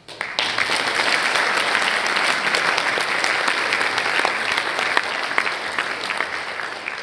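An audience applauding. The clapping starts suddenly, holds steady, and dies away near the end.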